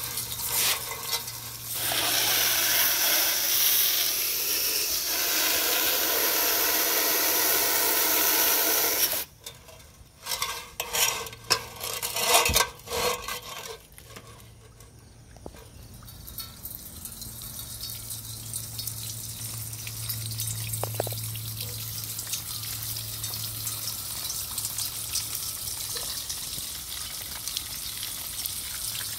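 Water running down a copper rain chain of lotus-shaped cups, spilling and splashing from cup to cup with a steady hiss. It is loud for the first nine seconds, then comes a run of knocks and bumps, then a softer, steady trickle.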